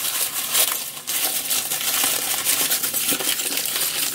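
Brown kraft packing paper being handled and crumpled, a dense crackling rustle of paper.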